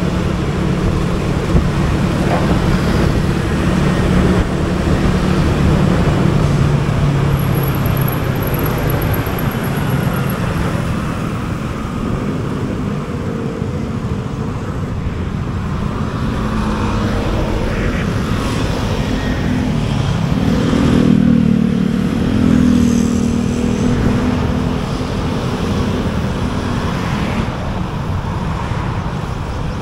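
Motor scooter riding through city traffic: its small engine running steadily under road noise and passing cars and motorbikes. About two-thirds of the way through, an engine note swells louder, then fades.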